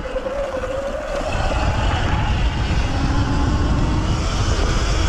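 Off-road motorcycle engine running hard up a loose dirt climb. It gets louder about a second in and then holds a heavy low rumble.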